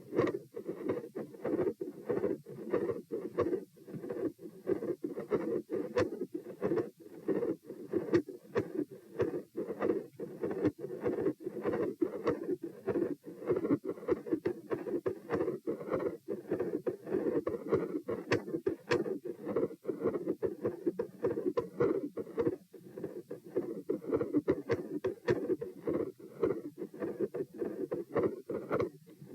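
Heart sounds recorded over the chest: a regular heartbeat with a machinery-like continuous murmur filling the gaps between beats.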